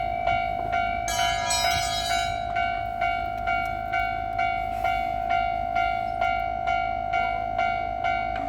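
Railway level-crossing warning bell ringing, struck again about twice a second, the alarm that a train is approaching. A brighter tone with many overtones sounds over it for about a second, starting about a second in.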